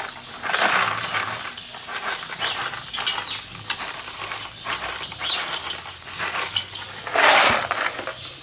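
Wood chips shaken out of a metal box onto a heap of charcoal in a kettle grill, rattling and scattering in several short bursts, the loudest about seven seconds in.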